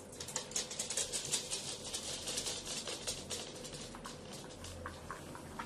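Two miniature dachshunds' claws tapping quickly on a hard floor as they hurry to their food bowls, then softer, sparser clicks as they eat from the bowls.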